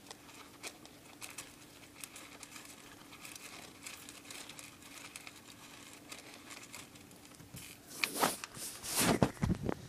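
A dwarf hamster rustling and digging in paper bedding: soft crinkling with many small scattered clicks. About eight seconds in, louder rubbing and knocking as the phone is handled over its microphone.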